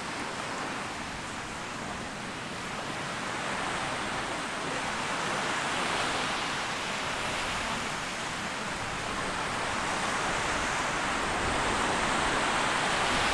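Small waves washing onto a sandy beach, a steady hiss of surf that swells about halfway through and again near the end.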